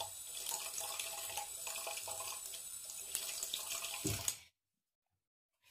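Water running from a bathroom tap into a sink while an item is rinsed under it, cutting off suddenly about four seconds in.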